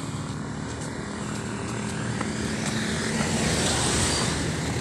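A motor vehicle engine running steadily with road and wind noise, growing louder as an oncoming SUV draws near.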